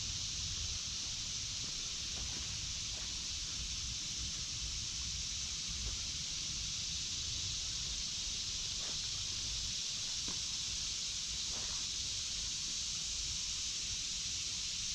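Steady high-pitched drone of a cicada chorus (the 'locusts' of the woods) that holds level throughout, with a low rumble underneath and a few soft rustles of steps on the trail.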